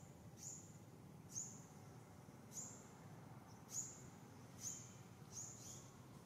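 About seven short, high-pitched animal chirps, roughly one a second, over a faint steady forest background.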